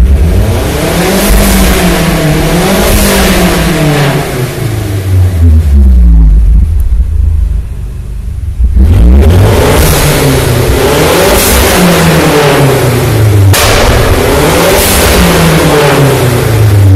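Mazda CX-7's turbocharged 2.3 DISI MZR four-cylinder engine revving up and dropping back several times, with turbo hiss and the whoosh of an aftermarket Forge blow-off valve as the throttle lifts. It dips quieter for a couple of seconds near the middle, then comes back suddenly loud.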